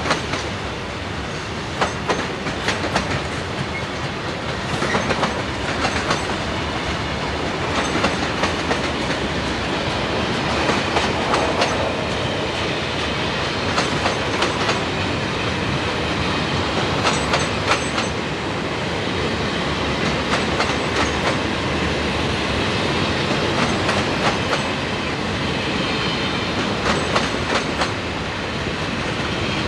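Freight train cars rolling past with a steady rumble, their wheels clacking over rail joints in repeated clusters of clicks.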